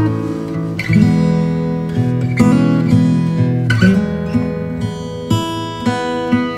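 Background music: an acoustic guitar strumming chords, a new chord about every second and a half.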